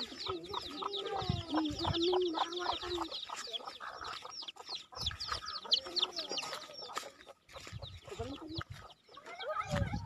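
Chickens clucking, with a rapid, dense run of high chirps through the first three seconds or so that thins out afterwards.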